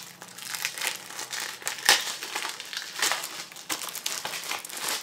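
Plastic wrapping being picked at and peeled off a Blu-ray case by hand, crinkling and crackling irregularly, with one sharper crackle about two seconds in.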